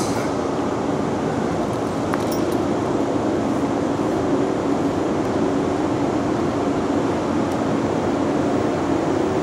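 JNR Class EF81 electric locomotive pulling away slowly, giving a steady fan-like hum with a low drone.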